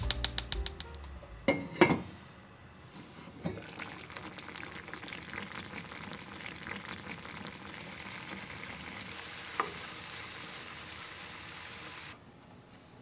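Braising sauce bubbling and sizzling around kabocha pumpkin wedges in an uncovered frying pan, a steady crackle that cuts off suddenly near the end. A couple of clanks come from the pan a second or two in.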